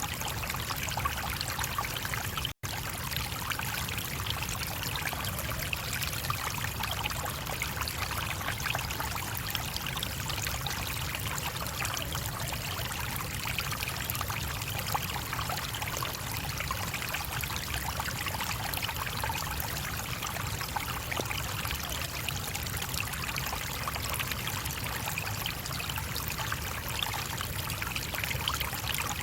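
A small stream running and trickling steadily, with one momentary cut-out in the sound about two and a half seconds in.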